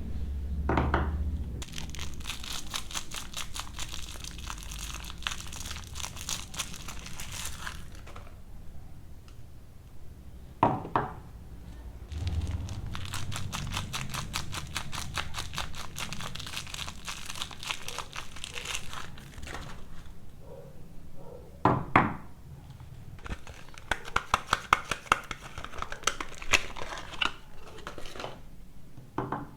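Soap-bar wrappers crinkling and tearing as they are unwrapped by hand. The crinkling comes in three long stretches, each near a short sharp rip or knock.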